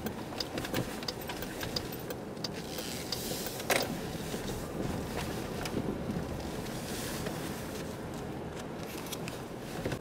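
Low road and engine noise heard inside a Jeep Grand Cherokee rolling slowly over a snowy road, with scattered light clicks and rattles and one sharper click about four seconds in.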